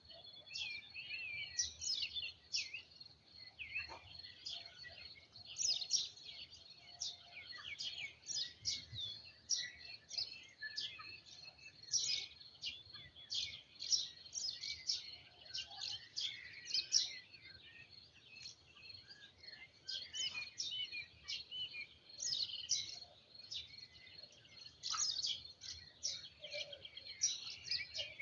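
Songbirds singing and chirping continuously, several overlapping calls and trills, with a steady high thin tone underneath.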